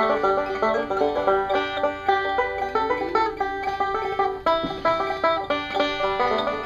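Bluegrass banjo music: a fast run of picked notes, playing steadily as background music.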